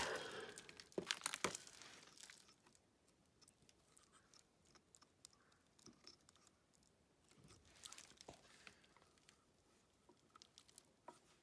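Mostly near silence with light handling noises: a couple of sharp clicks about a second in and a few faint ticks and rustles later, as clutch friction and steel drive plates are handled and slid into a motorcycle clutch basket.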